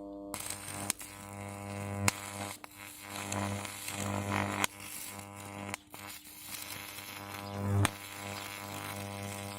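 Microwave oven transformer powered up, humming steadily with a buzzy mains tone. Several sharp clicks and bursts of crackling cut through the hum, with its loudness swelling and dropping.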